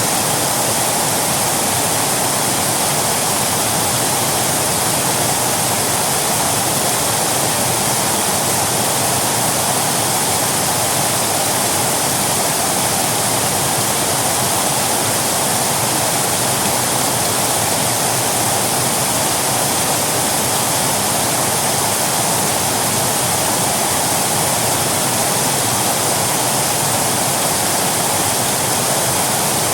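Waterfall: water falling and rushing in a continuous, steady roar of noise, loud and unchanging.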